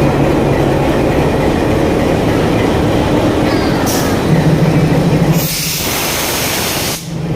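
Nilgiri Mountain Railway toy train running, a steady loud rumble and rattle of the carriages on the track, with a burst of hiss in the second half.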